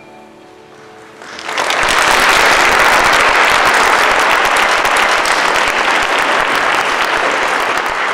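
Audience applauding: the last chord of the piano accompaniment fades, and about a second and a half in the clapping breaks out loudly and goes on steadily, easing a little near the end.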